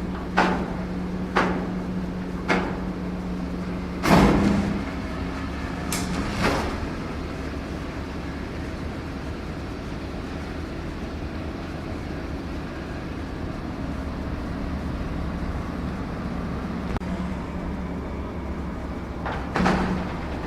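Heavy-equipment engine sound running steadily with a low hum, with sharp knocks about once a second at first, a louder clunk about four seconds in, and more knocks near the end.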